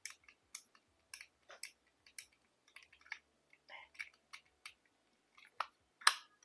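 Small jewelry box being tapped and clicked by hand for ASMR: a string of short, sharp clicks, uneven and about two a second, the loudest two near the end.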